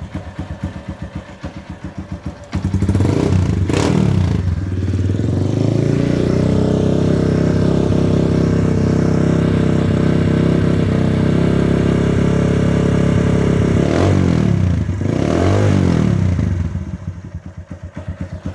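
Honda Titan 150 single-cylinder four-stroke motorcycle engine idling, then revved up about two and a half seconds in and held at steady high revs for several seconds, then let down with one more quick blip and back to idle near the end. The owner is chasing a faint ticking at idle, which he has been told comes from a tappet.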